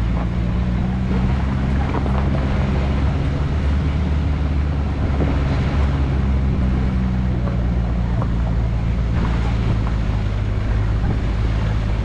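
Vehicle travelling at a steady speed: a constant engine drone under road and wind noise.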